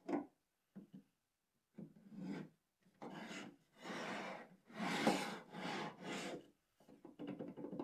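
Wooden drawer being slid in and out of its opening in a wooden toolbox case: a series of short wood-on-wood rubbing strokes, about one a second, as the drawer's fit is tested for a little side-to-side play so that it moves freely.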